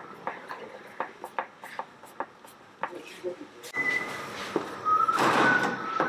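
Scattered light clicks and knocks with voices in the background, then a few short high tones and a loud rush of noise about five seconds in.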